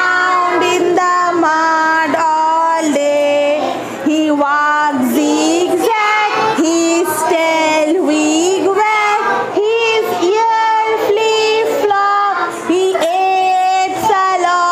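A group of small children singing a nursery action rhyme in unison, with a woman's voice leading the tune.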